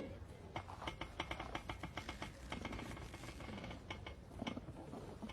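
Faint, scattered clicks of computer keyboard keys being tapped, irregularly spaced, over a low room hum.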